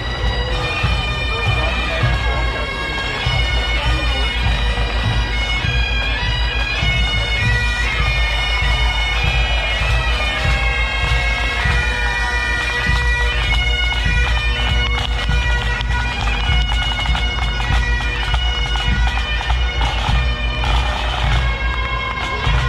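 Bagpipes playing a tune over their steady drones, the held notes sounding without a break under the changing melody.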